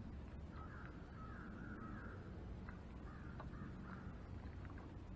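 Harsh bird calls, a quick run of three or so about half a second in, then a couple of fainter ones, over a low steady rumble.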